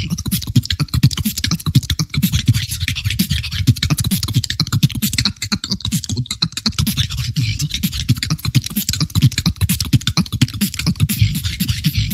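Human beatboxing: a fast, technical routine of rapid mouth-made kicks, snares and clicks over a low bass, running without a break.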